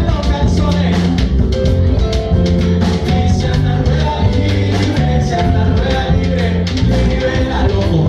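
Live band playing a Latin rock song: drum kit, congas and electric guitars over a steady bass line, with regular drum hits.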